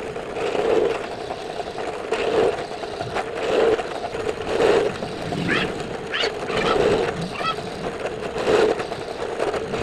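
Electric drill running while boring holes to mount a track saw rail, its pitch and level swelling and easing about once a second.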